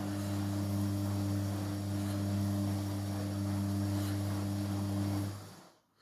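Amica front-loading washing machine running with a steady hum and a hiss above it, which cut off suddenly about five and a half seconds in.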